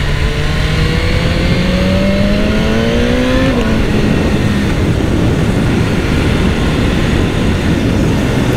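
BMW S1000R's inline-four engine pulling under acceleration, its pitch rising steadily, then dropping sharply about three and a half seconds in, over a steady rush of wind noise on the onboard microphone.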